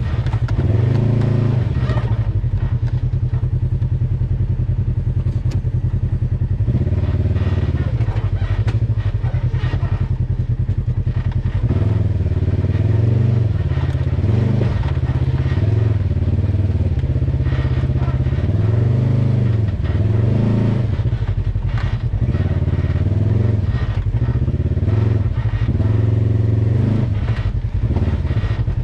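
Polaris RZR side-by-side's engine running, its revs rising and falling again and again as the machine is driven over rocks, with occasional clunks from the machine over the rocks.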